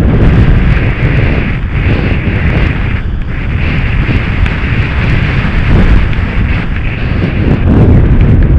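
Wind buffeting the camera's microphone while descending fast on a packed ski run, with a steady scraping hiss of edges over the snow that breaks off briefly a few times, as at turns.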